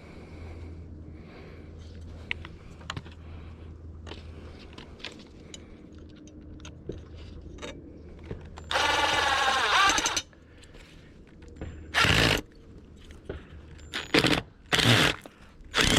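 Power drill driving screws: a run of about a second and a half, then several short bursts near the end, with small clicks and knocks from handling in between.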